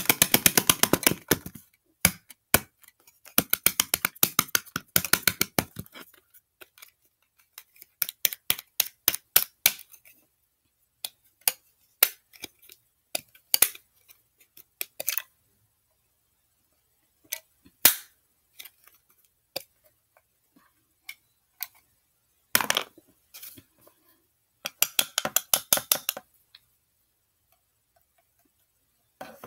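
Clear plastic cases and lids crackling and clicking as they are handled and pried open, in several bursts of rapid clicks.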